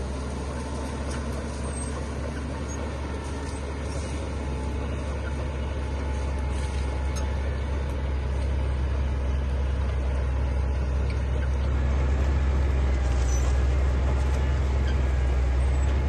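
Heavy diesel earthmoving machinery running: a steady, deep engine rumble that slowly grows louder.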